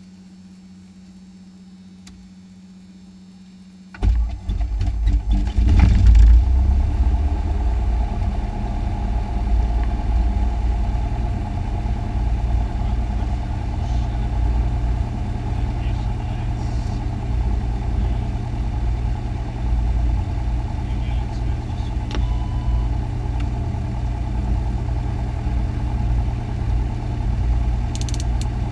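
Cessna 172's piston engine cranking and catching about four seconds in, running up briefly, then settling into a steady idle heard from inside the cockpit. Before the start there is only a faint steady hum.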